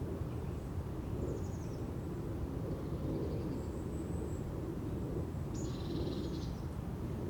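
Forest ambience: a steady low rumble with a few short, high bird calls over it, the clearest about six seconds in.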